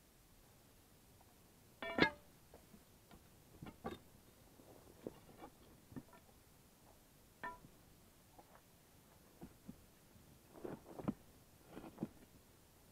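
Steel pry bar knocking against granite foundation stones as a stone is levered into place: scattered sharp metallic clinks, some with a short ring. The loudest comes about two seconds in, and there is a cluster of knocks near the end.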